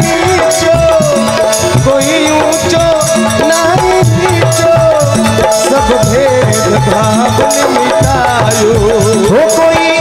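Rajasthani devotional bhajan music played live: a wavering harmonium and keyboard melody over dholak drum beats and a steady jingle of hand cymbals.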